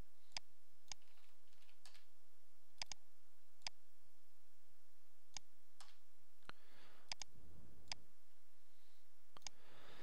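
Scattered sharp clicks of a computer mouse and keyboard, about a dozen at uneven intervals, as bones are placed one after another in 3D software. A soft rustling noise comes in about two-thirds through and again near the end.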